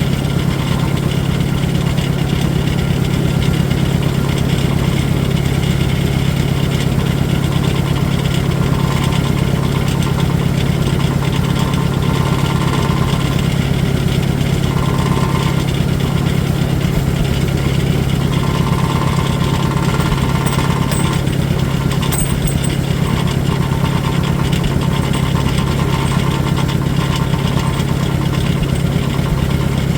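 Farmall 400 tractor engine idling steadily. The owner says this engine will only keep running on choke.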